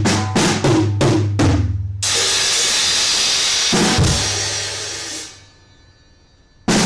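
Drum kit played: quick strokes on the drums and bass drum, then about two seconds in a Paiste PSTX Swiss cymbal is crashed and rings for about three seconds, with one bass drum hit under it, before fading away. The drumming starts again near the end.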